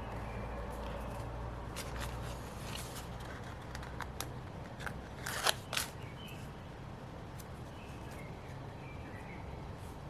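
Desk crafting sounds of paper, stickers and scissors at work on a planner page: scattered light clicks and rustles, with two crisp snips close together about five and a half seconds in, the loudest sounds, over a steady low hum.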